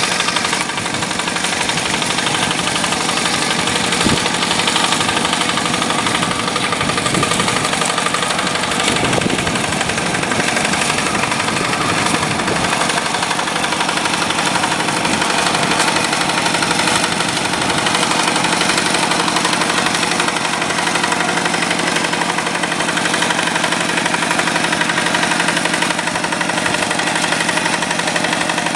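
Yanmar single-cylinder diesel engine of a two-wheel paddy tractor running steadily with a rapid, even knocking beat.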